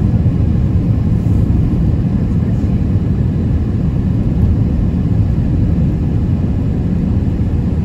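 Steady low rumble of a car driving, heard from inside the cabin: road and engine noise as it travels at a constant pace on bare, cleared asphalt.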